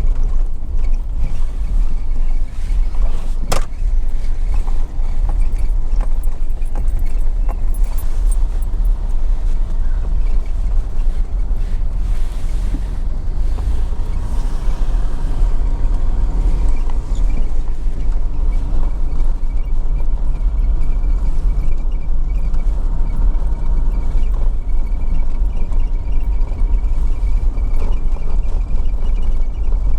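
A vehicle driving slowly along a dirt campground road, with steady engine and tyre rumble and one sharp click about three and a half seconds in.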